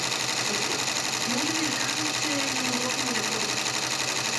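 Multi-needle embroidery machine running at speed, its needle mechanism stitching with a fast, steady mechanical rhythm.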